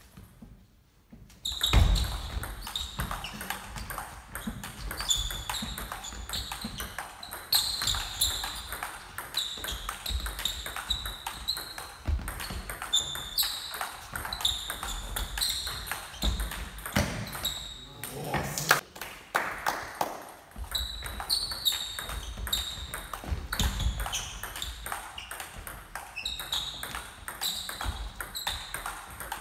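Table tennis rallies: the ball clicking on the bats and bouncing on the table in quick alternation, each hit with a short hollow ping, a few strokes a second. The rallies start after a brief quiet moment at the very beginning.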